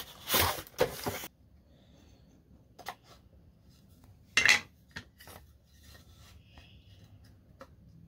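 Thin wooden birdhouse kit pieces being handled and set down on a hardwood floor: a rustle of the kit box at the start, then scattered light clacks and knocks of wood on wood and floor, the loudest about halfway through.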